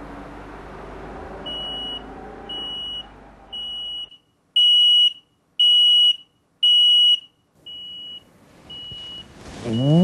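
Residential smoke alarm sounding, warning of smoke: a single high tone beeping about once a second, each beep about half a second long. Three beeps in the middle are much louder than the rest. Background music fades under the first beeps and stops about four seconds in.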